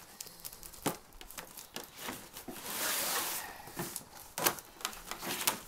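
Packing tape being torn and peeled off a cardboard box, with a longer tearing rasp about three seconds in. Scattered knocks and rustles of the cardboard being handled come around it.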